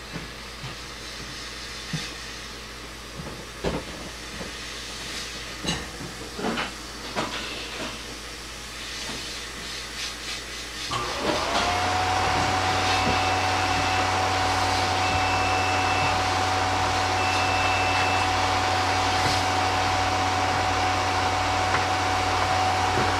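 Scattered metallic clicks and knocks as a drill bit in its chuck is handled and set into the bench drill bit sharpener. About eleven seconds in, the sharpener's motor switches on, whines up to a steady pitch and runs with an even hiss as the bit is ground on the wheel.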